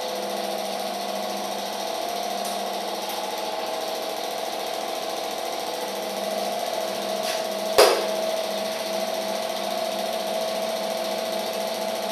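Film projector running: a steady mechanical whirr and clatter of the motor and film transport, with one sharp click about eight seconds in.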